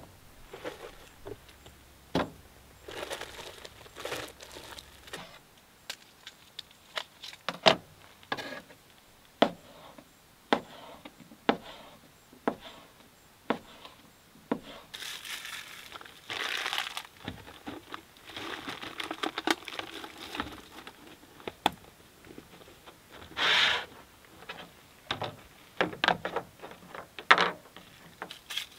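Food being prepared by hand: a knife knocking through food onto a plastic cutting board, with plastic packaging crinkling and rustling several times and containers clicking against the wooden tailgate.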